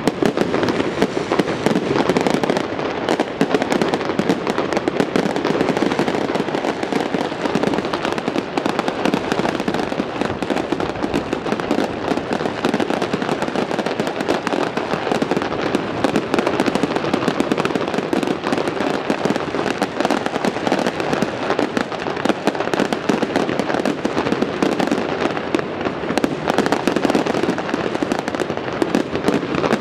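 Fireworks display going off in dense, continuous volleys of bangs and crackles with no pause.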